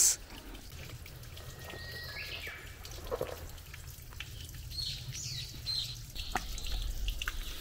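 Wild birds chirping a few times in forest, over a low steady rumble, with a few light scuffs of footsteps on a concrete path.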